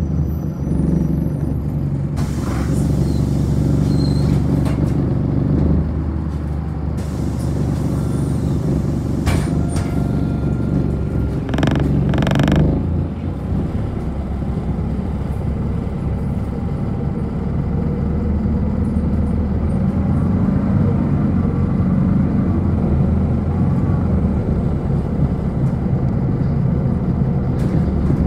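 City bus engine running and tyres on the road, heard from inside the passenger cabin while the bus drives. There are two short hisses about twelve seconds in, and the engine grows louder in the second half.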